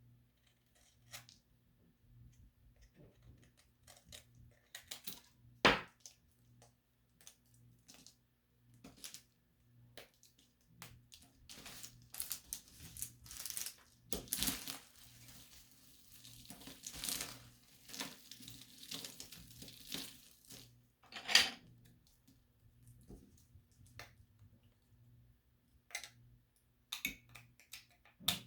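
Small hard objects handled close to the microphone: sparse clicks and taps, a denser stretch of crackling and crunching through the middle, and a few sharper knocks that stand out.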